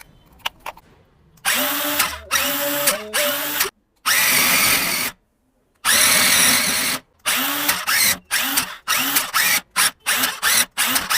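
Small electric motors of an eight-wheeled RC car whirring under throttle in repeated bursts, each starting with a quick rising whine. The first few bursts last one to two seconds; then they come short and fast, about two a second.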